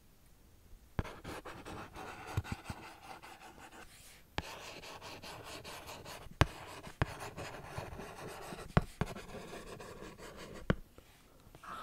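Pen writing on paper on a clipboard, close to the microphone: a steady scratching of the nib that starts about a second in, pauses briefly near the middle, and is broken by a few sharp taps. It stops just before the end.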